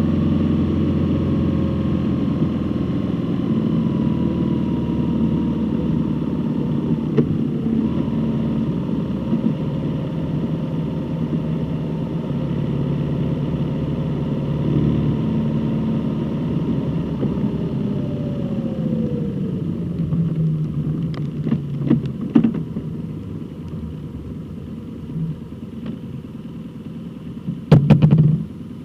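Road vehicle engine running while driving. Its pitch falls as it slows about two-thirds of the way through, then it runs quieter, with a few clicks and a loud thump near the end.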